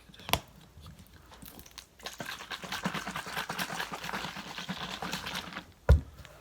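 A capped plastic bottle of water and Kool-Aid drink mix shaken hard for about three and a half seconds, the liquid sloshing inside, then set down with a loud thump near the end. A single click comes just before the shaking.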